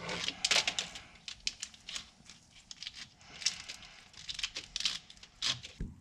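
Corrugated plastic wire loom being worked onto an engine wiring harness by gloved hands: irregular crinkling and clicking, with a sharper click near the end.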